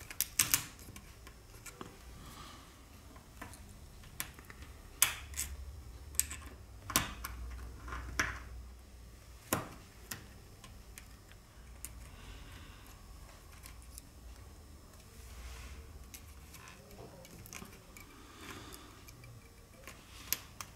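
Scattered sharp clicks and taps of small repair tools and smartphone parts being handled, a few at a time with pauses between, the loudest clustered a quarter to halfway through.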